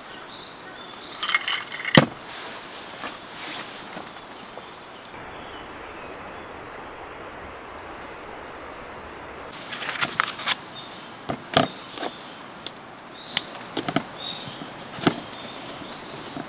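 Clicks and knocks of things being handled and set down on a camp table, the sharpest knock about two seconds in, then several seconds of steady outdoor background noise, then another run of clicks and knocks as a wooden cutting board and knife are handled for slicing a loaf of bread.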